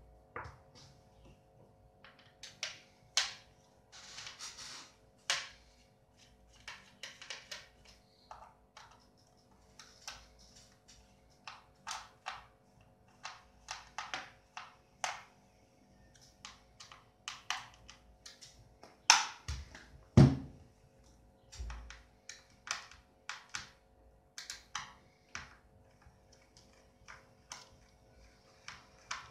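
Irregular small clicks and taps of a screwdriver and hands working the screws and plastic case of a laptop's bottom panel. Two heavier thumps come about two-thirds of the way through.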